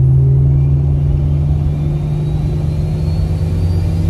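Turbocharged Jeep Cherokee XJ engine running steadily under way, heard from inside the cabin. A faint high whine climbs slowly in pitch over the engine.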